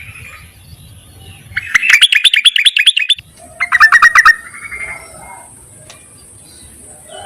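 Female yellow-vented bulbul (terucukan) calling to attract a male: a rapid chattering run of high notes lasting about a second and a half, followed shortly by a shorter, lower run.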